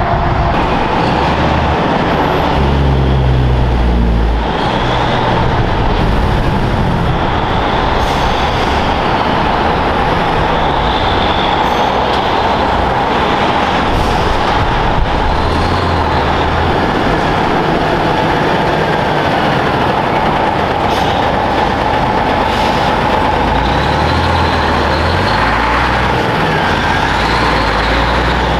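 Heavy trucks and road traffic driving past: a steady, loud run of engine and tyre noise with a deep rumble.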